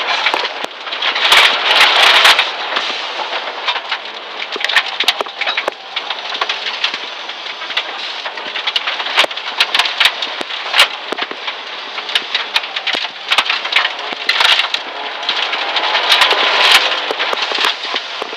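Dirt and gravel pelting the underside and wheel wells of a Dodge Neon SRT-4 rally car at full race pace in a dense, irregular rattle of sharp hits, heard from inside the cabin over the noise of its turbocharged 2.4-litre four-cylinder engine running hard. The hits come thickest about a second in and again near the end.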